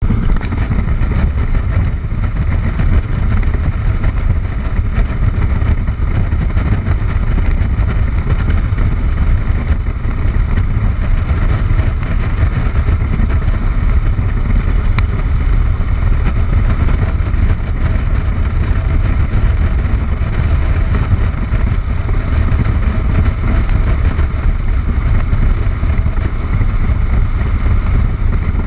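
Cruiser motorcycle cruising at steady highway speed, heard from a handlebar-mounted camera: a constant low engine and wind rumble with no shifts or changes in speed.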